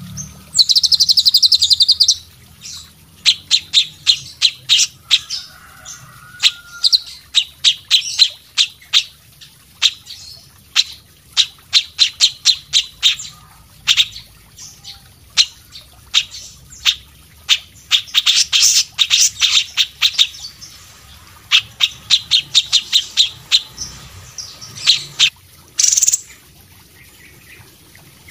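A mix of Indonesian songbirds (cililin, cucak cungkok, kapas tembak and cucak jenggot) calling in a stream of sharp, high chirps and short rapid trills, with denser trilling bursts about a second in and again about two-thirds of the way through.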